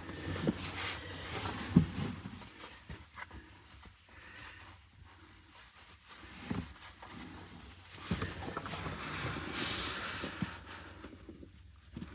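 Quiet clicks and rustling of electrical wires being handled and worked with wire cutters, with a couple of sharper clicks among them.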